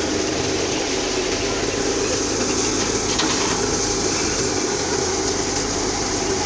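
Wheat thresher machine running steadily, with a short sharp knock about three seconds in.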